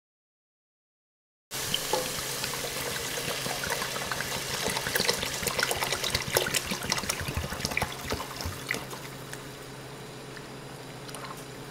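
Water poured in a steady stream from a kettle into a pot of sautéed shrimp, splashing and trickling. It starts after a second and a half of silence and softens a little near the end.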